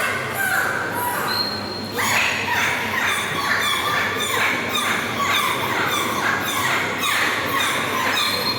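Dolphin performing a 'song': a fast run of short falling whistles and squeals, one after another, with a couple of brief high held whistles.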